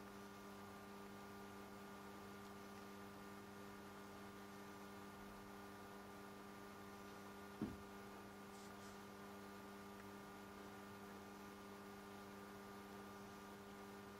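Faint steady electrical hum made of several fixed tones, with one short thump about halfway through.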